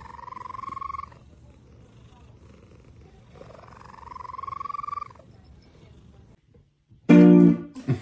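Long-haired grey cat giving two long meows, each rising in pitch and then holding, the second longer. Near the end, loud guitar music starts.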